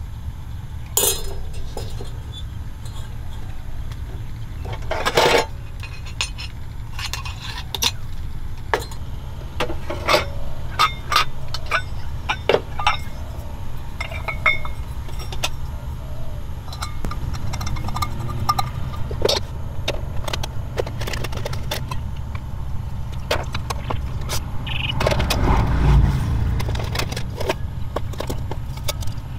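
Scattered metallic clinks and knocks of stainless camping coffee gear being handled and set down on a wooden tabletop: a collapsible wire-spiral pour-over dripper and a gooseneck kettle. A few louder knocks stand out, about a second in, about five seconds in and near the end, over a steady low rumble.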